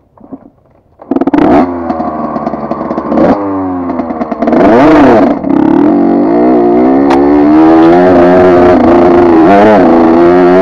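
80cc two-stroke dirt bike engine cutting in suddenly about a second in, then revved up and down several times before holding at steady high revs.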